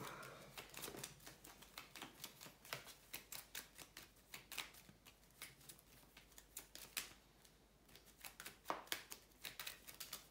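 Trading cards being shuffled and handled: a run of quick, faint clicks and flicks for about six seconds, then a few scattered ones near the end.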